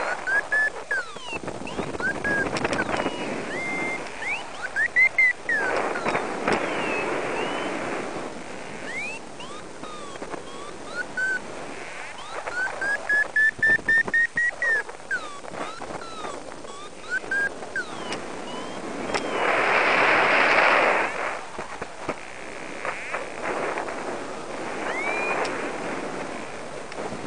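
Paragliding variometer beeping in short chirps, with one fast run of rising beeps in the middle: the climb tone that signals rising air while circling in lift. Wind rushes over the microphone in several gusts, the strongest about twenty seconds in.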